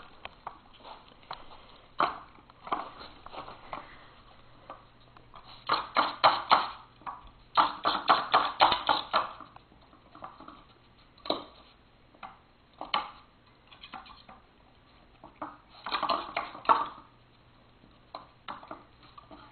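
Plastic layers of a Nina Ottosson Dog Tornado treat puzzle clicking and knocking as a small dog spins them to get at the treats. It comes in several bursts of rapid clicking, with single knocks between.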